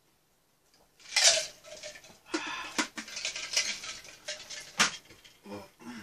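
Tableware clinking and clattering as a cup and utensils are handled on a tray of dishes: one sharp ringing clink about a second in, then a run of clinks and scrapes, fading to a few soft knocks near the end.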